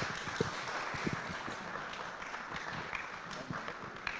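Audience applauding steadily, with a few soft low knocks.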